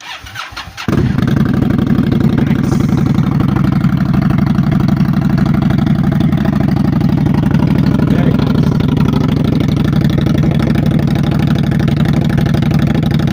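Indian Scout Bobber Twenty V-twin is cranked over and catches about a second in, then idles steadily through Vance & Hines Twin Slash slip-on mufflers with an even, loud exhaust pulse.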